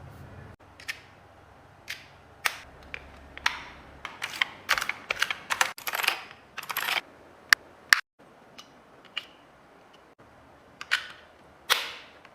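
Irregular sharp clicks and taps of small hard objects being handled, bunched together in the middle, with a brief gap of silence about eight seconds in.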